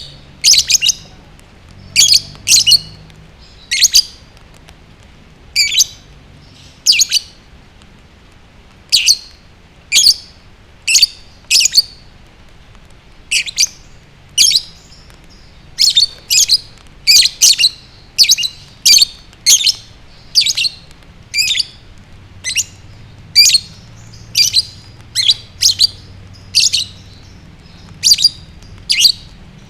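Lovebird chirping: short, sharp, shrill calls repeated about once or twice a second, often in quick pairs. This is the kind of chirping said to set other lovebirds singing hard.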